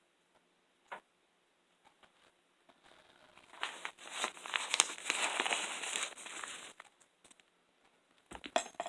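Handling noise as crystals are rummaged for and picked up: a click about a second in, then about three seconds of rustling and crinkling with small clinks of stone.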